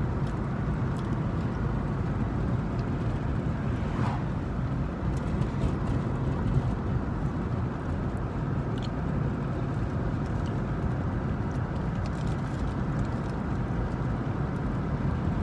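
Steady low rumble of a car heard from inside its cabin, with a few faint clicks and rustles now and then.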